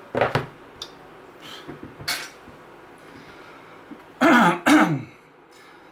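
A man coughs twice, two short loud bursts about four seconds in, after a few fainter short handling sounds.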